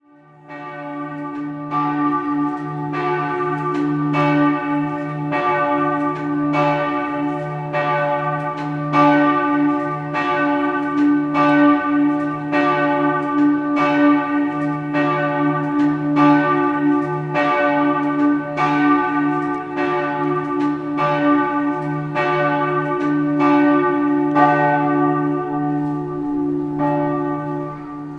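Church bells ringing up close, struck in steady succession about every two-thirds of a second, their deep hum ringing on under the strokes.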